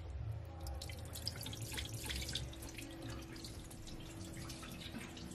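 Water splashing and dripping in a glass bowl as hands rinse raw beef chunks at a stainless steel sink: irregular small splashes and drips.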